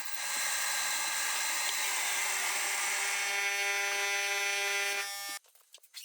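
A power tool motor running steadily at constant speed, with an even whine over a hiss, cutting off abruptly about five seconds in; a few faint clicks follow.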